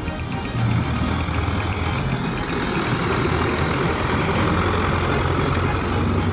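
Hürlimann tractor's engine running steadily as the tractor drives past, towing a loaded hay wagon.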